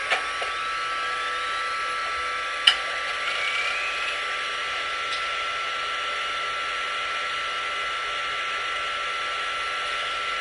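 Siren sound effect holding one steady pitch over a rushing hiss, with a sharp click about two and a half seconds in.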